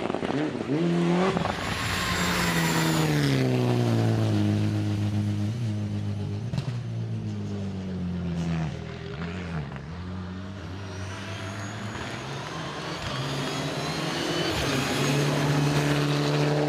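Rally car engines revving hard. Quick rises and falls in pitch come at the start, then a long falling pitch as a car slows, then a low steady run. A rising pitch near the end comes as a car accelerates past.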